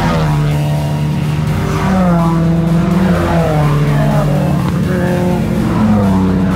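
Race car engines on track, rising in pitch and dropping back several times as they accelerate and shift, mixed with background music.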